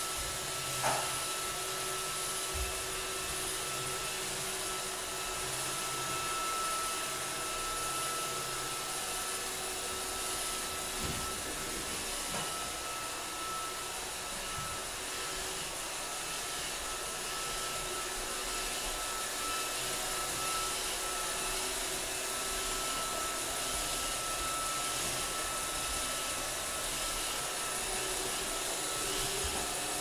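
Steady whirring hum of a small appliance motor, with a few soft knocks, the loudest about a second in.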